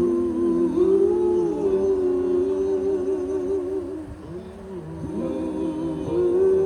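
A person humming a slow melody of long held notes that waver gently in pitch, over a steady low rumble.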